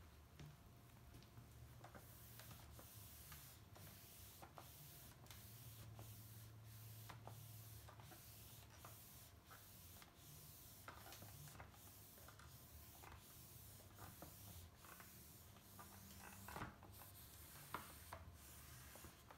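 Microfiber cloth wiping an LCD monitor screen: faint, quick back-and-forth rubbing strokes, about two to three a second, with a couple of light taps near the end.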